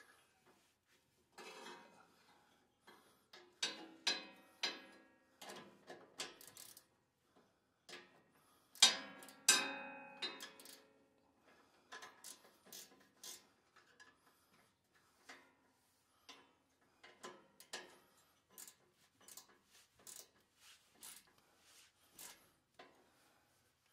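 Steel wrenches clicking and clinking irregularly on the nut and bolt of a snowblower auger-shaft bearing as it is tightened. Louder ringing metal clinks come around four seconds in and again around nine seconds in.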